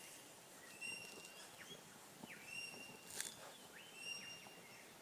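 Faint bird calls: several short, clear whistled notes, some ending in a falling slide, repeated over a quiet outdoor background.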